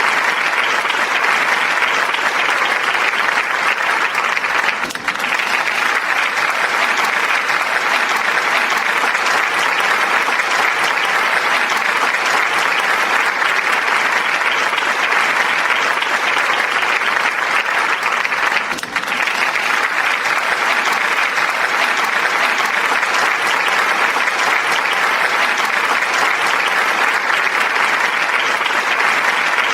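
Audience applauding steadily, a dense wash of many hands clapping, with two brief dips in level about five seconds in and again at about nineteen seconds.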